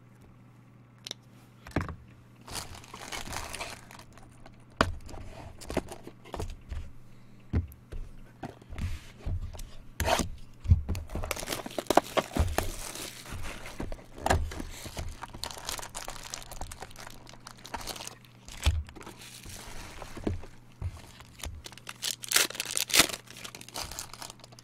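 Plastic wrap of a trading-card box being torn open and crinkled by hand, in several rustling stretches, with many sharp knocks and taps as the box and cards are handled on the table. A steady low hum sits under it all.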